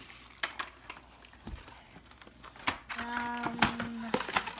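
Scattered light clicks and taps of a child handling cardboard toy packaging, then about three seconds in a child's voice holds one steady hummed note for about a second.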